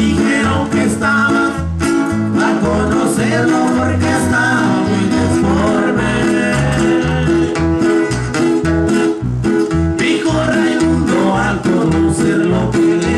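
Live band music: two acoustic guitars, one of them nylon-string, strummed over a steady electric bass line.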